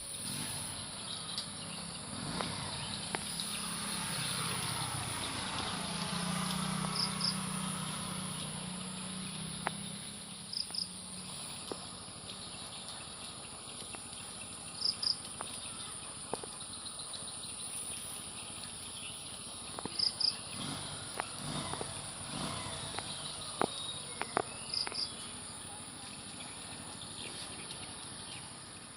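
Steady high-pitched insect drone, like crickets, with a short double chirp every five seconds or so.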